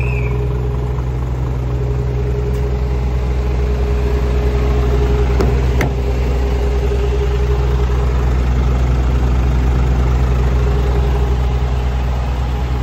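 Scania S500 truck's diesel engine idling steadily.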